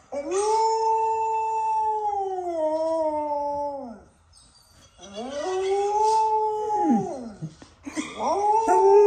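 A Samoyed's long, drawn-out howls, three in turn, each holding a steady pitch and then falling away, played back from a video of her howling.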